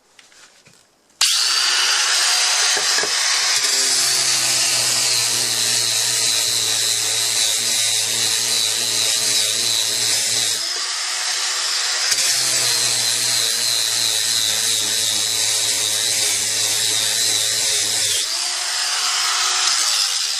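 WORX 20V cordless angle grinder starting about a second in and sanding a piece of wood with a sanding attachment: a steady high motor whine. A lower grinding tone joins while the disc is pressed into the wood, drops out briefly around the middle and again near the end as the grinder runs free.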